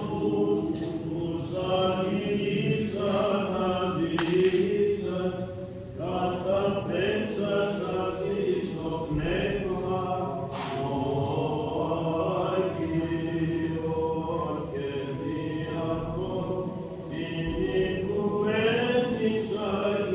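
A group of men singing Byzantine Orthodox chant in a church, the voices continuing with shifting melodic lines.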